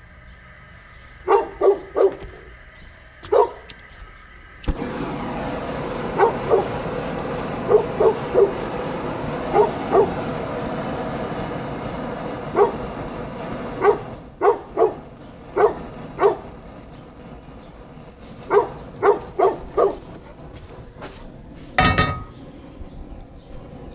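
A dog barking again and again, in single and double barks. About five seconds in, a propane burner lights with a sudden steady hiss that runs for about nine seconds and then drops quieter. Near the end comes a loud clank as a cast-iron skillet is set down on the burner's grate.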